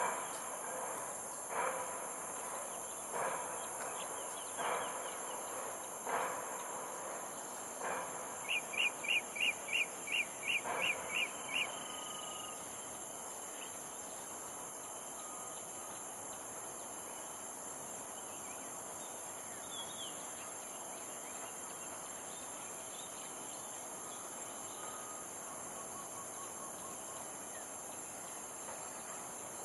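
Blue-throated bee-eater calling: a fast run of about nine sharp, high notes, the loudest sound, starting a little over a quarter of the way in, after single calls repeating about every second and a half. A steady high insect buzz runs underneath throughout.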